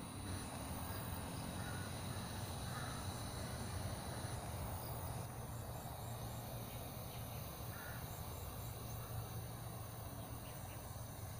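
Outdoor ambience: a steady high insect drone with a few short bird calls, over a low steady rumble.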